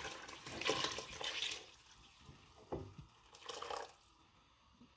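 Water poured from a glass jug into a pot of soured milk, splashing in over the first second or so, then trailing off into a few fainter splashes.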